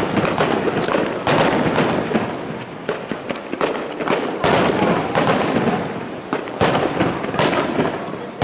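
Starmine fireworks barrage: aerial shells bursting one after another, about once a second. Each burst is a sharp boom, and crackling and rumble fill the gaps between them.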